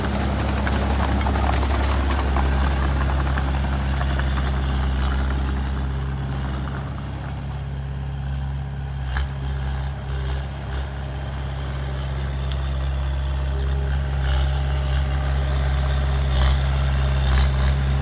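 Komatsu D20A crawler bulldozer's diesel engine running steadily with a low drone, easing off slightly in the middle.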